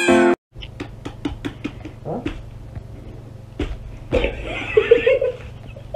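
Repeated sharp knocks of a head striking a whole watermelon, several in quick succession and then a few harder blows, over a steady low hum. A woman's short cries come between about four and five seconds in.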